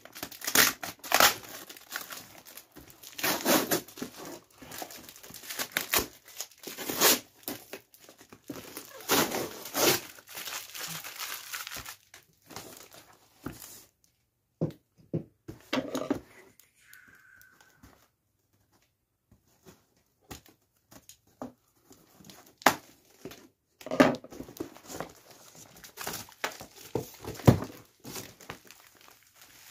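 Packing tape being ripped and peeled off a cardboard shipping box, with the cardboard rustling and crinkling in repeated short rips. It goes quieter in the middle, then near the end there is more crinkling and rustling as an inner box wrapped in bubble wrap is pulled out.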